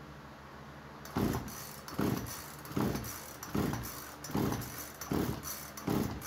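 Poulan Pro PP4218AVX chainsaw pulled over on its recoil starter during a compression test: starting about a second in, six quick, evenly spaced pulls, each turning the two-stroke engine over against a compression gauge in the spark plug hole, without firing.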